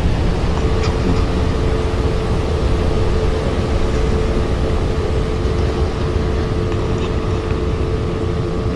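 Ambient sound design: a steady low rumbling noise with a sustained droning tone that comes in about half a second in, and a few faint ticks.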